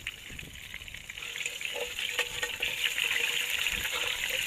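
Hot oil sizzling and crackling as flour-dredged snail meat fries in a cast iron skillet over a campfire, growing louder about two seconds in as more pieces go in.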